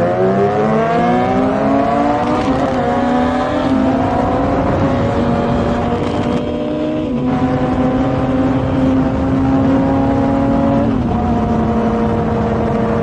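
Motorcycle engine pulling up through the revs, then holding a steady high-pitched drone at cruising speed over a constant hiss, with a short break in the tone about six seconds in.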